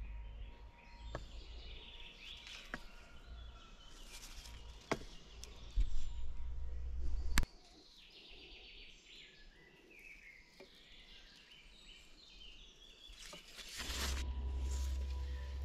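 Woodland birds chirping and calling in the background, over a low rumble on the microphone that drops away about halfway through and comes back near the end, with a few sharp clicks.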